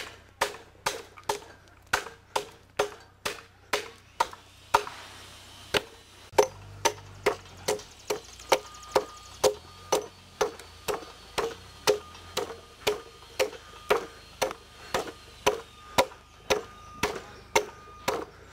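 Hand axe chopping into the end of a log, steady sharp strikes about two a second, breaking out the waste wood between chainsaw kerfs to rough out a half dovetail notch.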